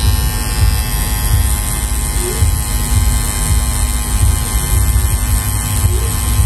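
Tattoo machine buzzing steadily while its needle works ink into the skin.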